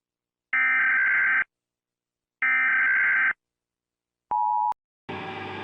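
Emergency-alert data tones: two loud, buzzy, electronic bursts of about a second each, two seconds apart, then a short single-pitch beep. Just before the end a low, steady droning music bed comes in.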